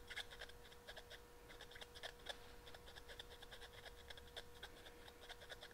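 Faint, rapid scratching and small metallic clicks of a torch tip cleaner wire being worked through a clogged small-engine carburetor jet.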